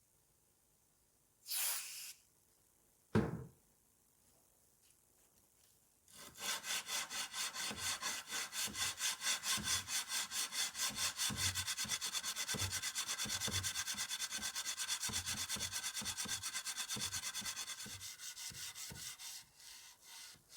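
Rapid, even back-and-forth abrasive rubbing by hand on the metal of a pair of old scissors, as in sanding or brushing off rust. It starts about six seconds in and fades near the end. Before it comes a short scrape and a single knock.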